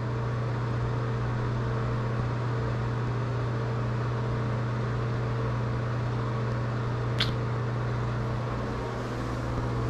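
A cat gives a single short, high squeak about seven seconds in, over a steady low hum.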